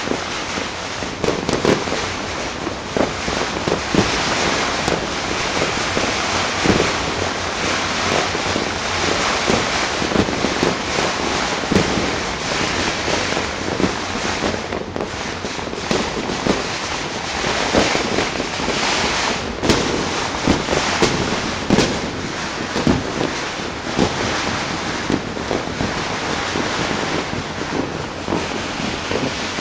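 Many fireworks and firecrackers going off at once: a continuous crackle with frequent louder bangs throughout.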